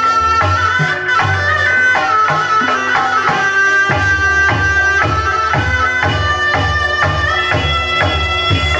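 Sundanese terompet, a shrill double-reed shawm, playing a held, wavering melody over kendang hand drums beating a steady rhythm, with a deep drum underneath. The reed's melody steps up in pitch near the end.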